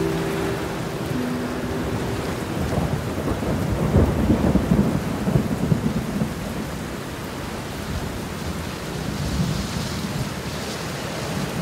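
Steady heavy rain with a low rolling rumble of thunder that swells about three seconds in and fades by six seconds.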